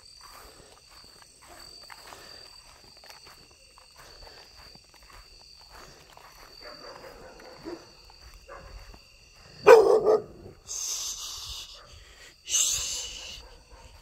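Night insects chirring in steady high tones throughout; about ten seconds in a dog barks once, loudly, followed by two short hissing bursts of noise.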